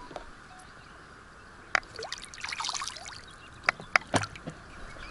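Water splashing and trickling, with a few sharp clicks and knocks in the second half.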